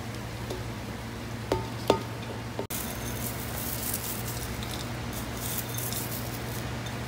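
Boiled rice tipped from a steel bowl into a steel pot, with two or three sharp ringing metal clinks of bowl against pot. After a sudden break, a light crackly patter of crisp fried onions being scattered over the rice.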